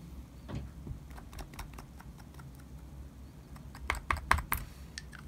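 Light plastic clicks and taps from a small tube of gold pigment powder being tapped to shake the powder out, a few scattered at first, then a quick, louder cluster about four seconds in.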